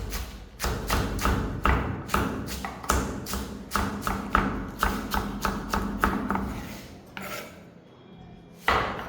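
Knife chopping rapidly on a wooden cutting board, about three to four strokes a second, pausing about seven seconds in before a loud knock near the end.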